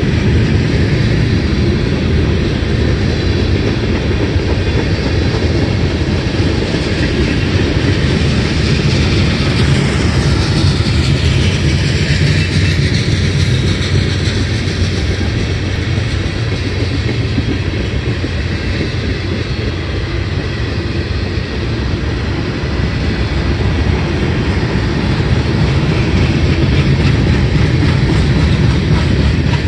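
Freight cars of a CSX train rolling past: a steady rumble of steel wheels on the rails, with clickety-clack as the trucks cross the rail joints.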